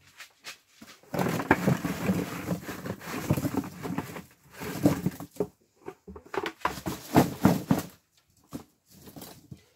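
Cucumbers tumbling out of a plastic bucket into a cardboard box: a dense clatter of knocks for about three seconds, then a few shorter rattling bursts as the last ones are shaken out and handled.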